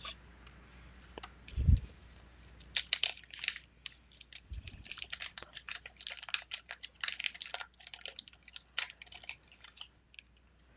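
A 1991 Fleer basketball wax pack being torn open by hand: a dense run of crinkling and crackling from the paper wrapper, with two low thumps about one and a half and four and a half seconds in.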